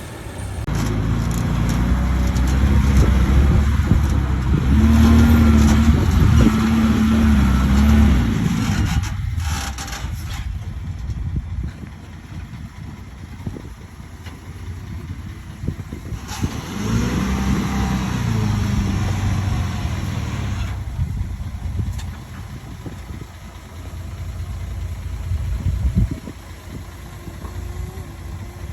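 Heavy diesel engine of earthmoving machinery working. It revs up loud for several seconds at the start, drops back to a lower steady running sound, then revs loud again about two-thirds of the way through. A single sharp knock comes near the end.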